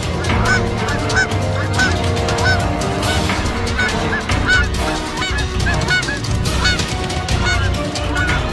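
Canada geese honking over and over at a snake coiled in their nest, typical nest-defence calling. The short honks rise and fall and follow one another quickly.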